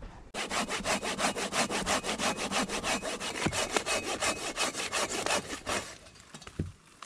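Silky Big Boy folding saw cutting through a deadfall log, in fast, even strokes of about seven a second that stop about six seconds in. A single low knock follows shortly after.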